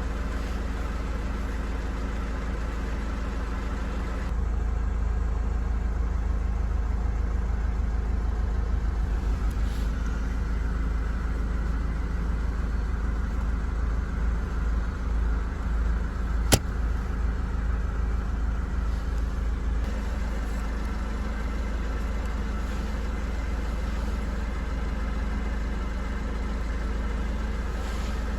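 Mercedes car running at idle, a steady low hum. About four seconds in it gets louder and fuller until about twenty seconds in, with a single sharp click in between.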